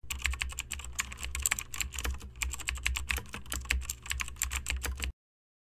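Typing sound effect: rapid, irregular keyboard key clicks over a low hum. It stops abruptly about five seconds in.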